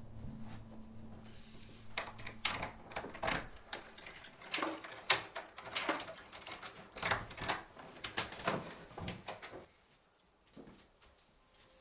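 A metal door handle and latch being worked: an irregular run of sharp clicks, rattles and knocks lasting several seconds, stopping about ten seconds in.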